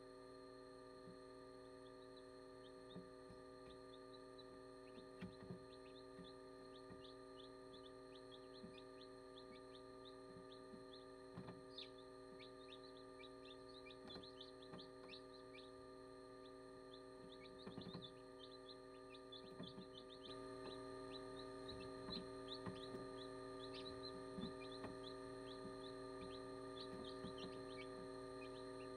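Newly hatched chicks peeping, many short falling chirps coming thick and fast, with a few soft knocks, over a steady electrical hum.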